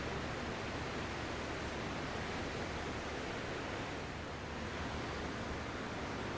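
Ocean surf: a steady wash of waves with no distinct single breakers standing out.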